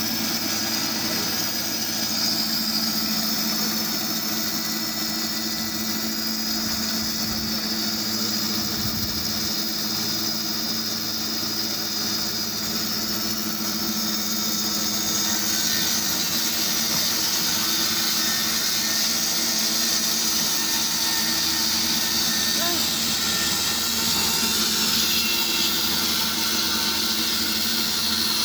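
Log band sawmill running steadily, with a brighter hiss coming in about halfway through.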